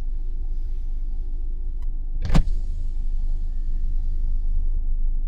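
Steady low hum from inside a parked Tesla running in camp mode with its climate control heating, with one sharp knock a little over two seconds in.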